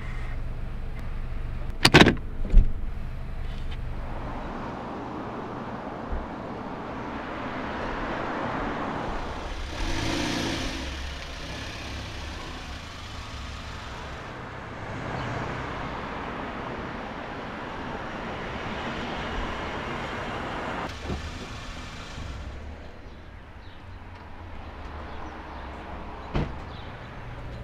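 Car driving on a street, with tyre and engine noise swelling and fading several times. Two sharp knocks come about two seconds in, and another comes near the end.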